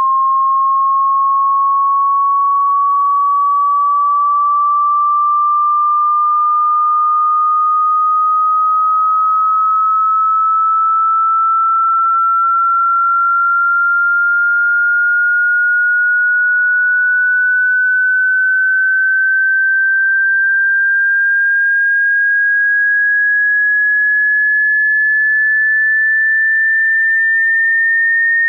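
Hearing-test sweep: a single pure sine tone rising slowly and steadily in pitch, at an even loudness.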